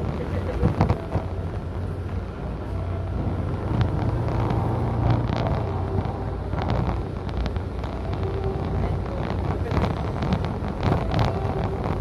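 Road and engine noise heard from inside a moving vehicle: a steady low rumble with frequent small knocks and rattles.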